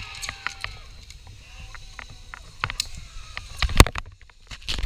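Zipline trolley setting off along the steel cable as a rider launches from the platform, a faint falling whir, among scattered clicks and knocks of clips and handling. Loud knocks come about three and a half seconds in.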